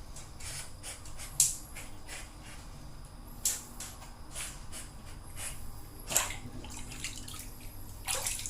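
Water splashing and dripping in a bathtub as a dog moves about in it, with a few sharper splashes spaced a couple of seconds apart over a steady low hum.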